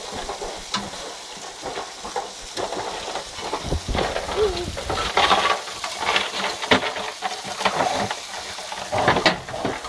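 Chicken thighs sizzling on the grate of a kamado-style grill, a steady hiss of fat cooking, with short clicks and scrapes of metal tongs on the grate as the pieces are handled.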